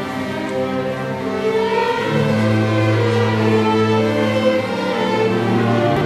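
Student string orchestra of violins and cellos playing slow, sustained bowed notes. A low cello note comes in about two seconds in and is held.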